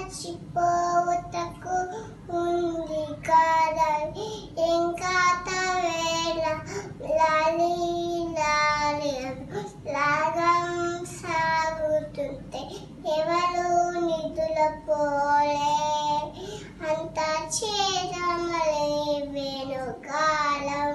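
A toddler girl singing a lullaby in a high child's voice, in short phrases of held notes that often slide down at the end.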